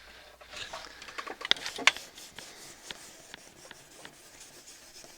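Light rubbing and scattered sharp clicks of small objects being handled on a workbench, with two louder clicks about a second and a half in.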